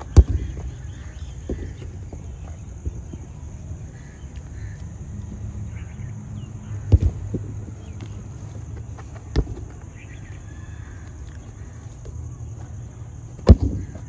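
A football being kicked: sharp thuds at the start, twice in quick succession around seven seconds, again about nine seconds in, and near the end, over steady outdoor background noise with a high, even whine.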